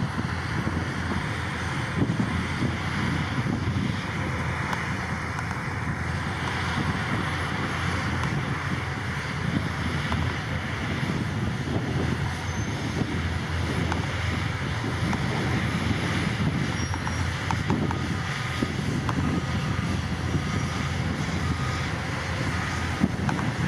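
Heavy diesel earthmoving machinery running steadily with a low rumble, mixed with wind noise on the microphone.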